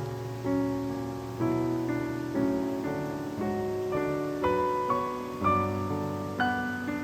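Background piano music, a gentle piece with a new chord struck about once a second, each fading before the next.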